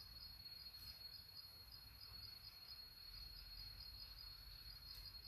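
Faint insect chirping: a steady high-pitched trill with evenly spaced pulses, about three or four a second, over otherwise near-silent room tone.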